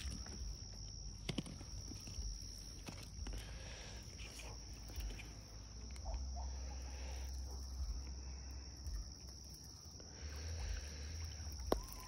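Steady high chirring of night insects, with low rumbling handling noise on the phone's microphone and a few sharp clicks.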